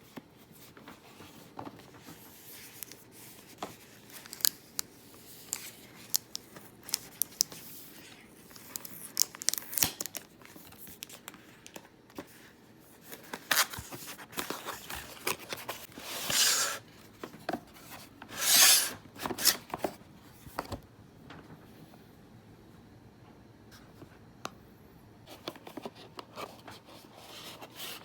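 Packaging being opened and handled: scattered taps and clicks throughout, with a few short rustling, tearing sweeps in the middle.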